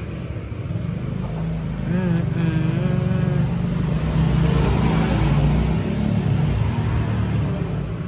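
Motor vehicle traffic going by: a low engine hum throughout, swelling to its loudest about five seconds in and then easing off as a vehicle passes, with a brief wavering pitched tone a couple of seconds in.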